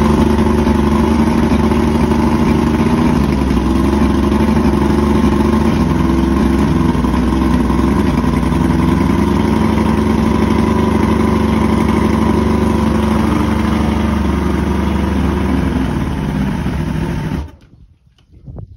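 1987 Johnson 175 HP V6 two-stroke outboard motor, cowling off, running at a steady idle while cooled by a garden hose at the lower unit. It shuts off suddenly near the end.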